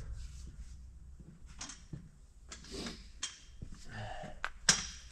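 Scattered clinks and knocks of hand tools on engine metal as a stubborn part is worked loose, with one sharper metallic clank near the end.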